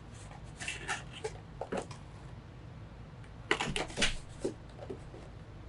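Scattered clicks and knocks of small hard objects being handled, the loudest cluster about three and a half to four seconds in, over a steady low hum.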